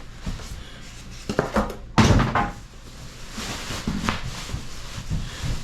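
Cardboard box and packing being handled while a microwave is unpacked: rustling, scraping and soft knocks, with one sharp thump about two seconds in.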